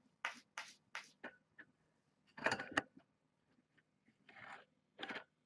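Kitten clawing at the side of a cardboard box: a quick run of scratching strokes, then a few louder, separate scrapes.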